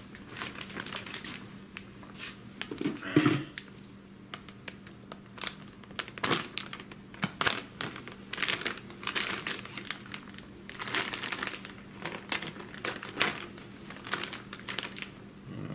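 Thin plastic bag crinkling and rustling in irregular bursts as it is handled and opened to get a new carburetor out.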